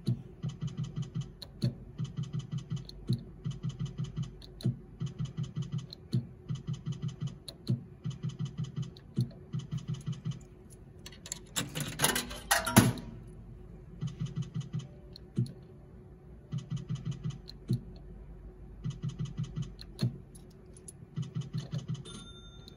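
Zeus Glory video slot machine spinning its reels again and again, each spin a burst of rapid electronic ticking about a second long. About twelve seconds in, a louder noisy scrape lasts a second or so. Near the end comes a short electronic tone as a win lands.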